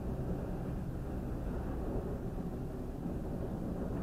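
Freight train of autorack cars rolling through a grade crossing, a steady low rumble muffled through the closed cabin of a stopped car.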